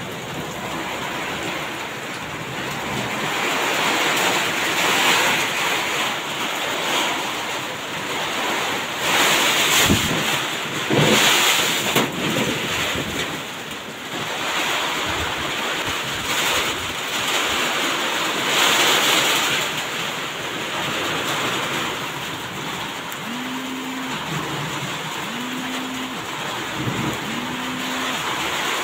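Steady rushing noise that swells louder a few times, with four short pitched tones near the end, each rising and then held.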